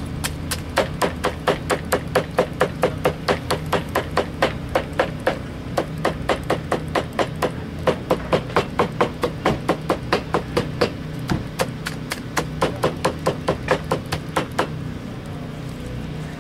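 Smoked pork butt being chopped: rapid, even blade strikes on a cutting board, about three a second, with a short pause near the end.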